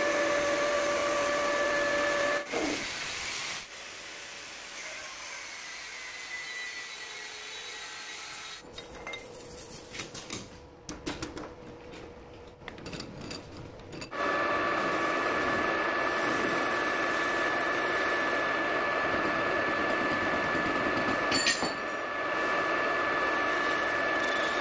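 Metal lathe running with a steady whine, then stopping a couple of seconds in. Irregular metallic knocks and clinks follow as the workpiece is handled at the four-jaw chuck. About midway the lathe starts again and runs steadily, with a short click near the end.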